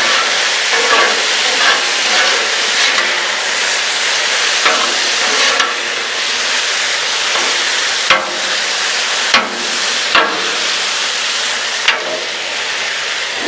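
Sliced chicken sizzling on a hot Blackstone flat-top griddle while metal spatulas scrape and push it into a pile, with a few sharp clacks of the spatulas on the griddle in the second half.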